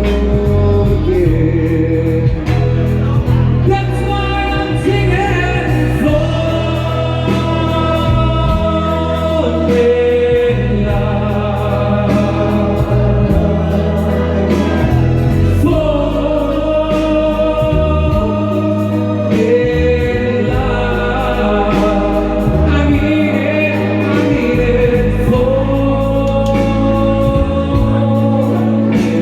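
Song music with sustained, choir-like backing vocals over a steady bass, held chords changing every few seconds.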